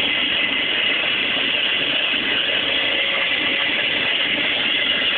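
A loud, steady mechanical whir with a faint hum in it, unchanging throughout, serving as the UFO's sound.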